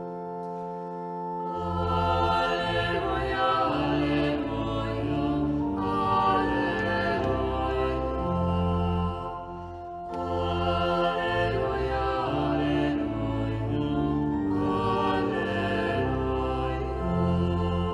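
Choir singing a slow sacred chant over held accompaniment notes and a deep bass line. The voices and bass come in about a second and a half in, break off briefly about halfway, then begin a second phrase.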